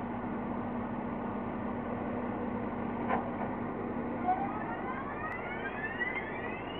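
A motor vehicle's engine running over steady outdoor background noise, with a rising whine from about four seconds in as it speeds up.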